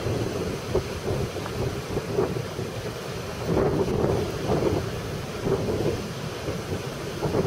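Wind buffeting the microphone: a gusty low rumble that swells and fades.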